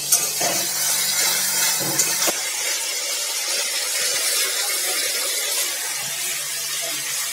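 Ground spice paste and tomato sizzling steadily in hot oil in a steel kadai while being stirred with a metal spatula, the masala being fried down. A few sharp clicks of the spatula striking the pan come near the start and about two seconds in.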